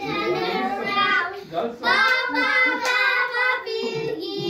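Young girls singing together, with a brief break about a second and a half in.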